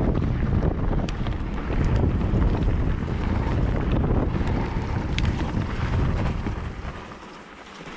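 Wind buffeting the microphone of a mountain bike's point-of-view camera while riding, over the rumble of tyres on the trail, with a few sharp clicks. It gets quieter about seven seconds in.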